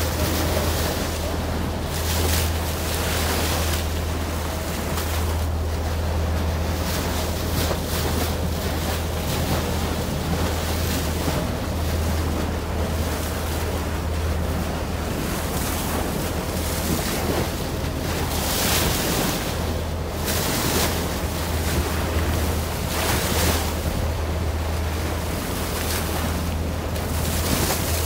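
Boat under way: a steady low engine hum, with water rushing and splashing along the hull in recurring surges and wind buffeting the microphone.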